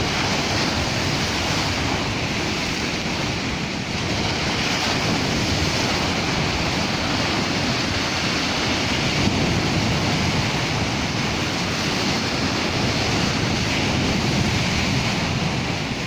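Choppy surf breaking and washing up the shore among driftwood logs, a steady rushing wash of water, with some wind on the microphone.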